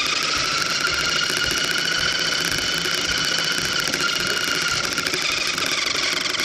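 RC car's electric motor and gears whining at a steady high pitch at full running speed, picked up close by a phone mounted on the car, with a rattly crackle from the drivetrain and wheels.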